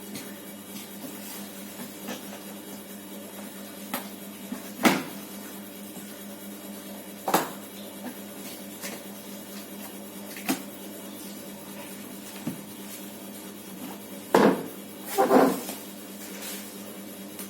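Scattered knocks and clatters from a TV box and its packaging being handled during an unboxing, about half a dozen, the loudest two close together near the end. A steady low hum runs underneath.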